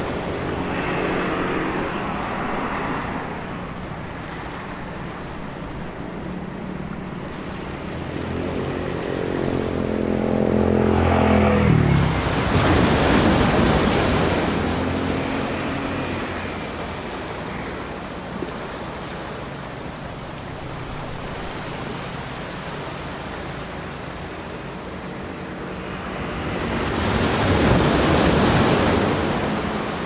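Sea waves washing in over shoreline rocks, surging loudly about twelve seconds in and again near the end. Behind them a steady hum of street traffic, with one engine rising in pitch just before the first surge.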